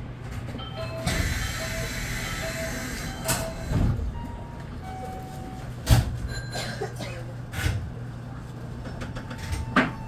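Electric commuter train (Senboku 9300 series) standing at a station: a steady low equipment hum, a short beep repeated several times over the first few seconds, and several sharp clunks, the loudest about six seconds in.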